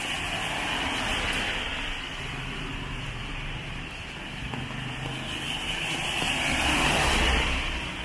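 Car tyres hissing on a wet road as traffic passes over a steady wash of rain noise. One car's hiss swells louder and fades about seven seconds in.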